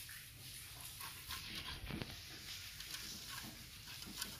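Puppies licking yogurt out of a plastic multipack cup tray: a run of small, irregular wet licks with light clicks of the plastic.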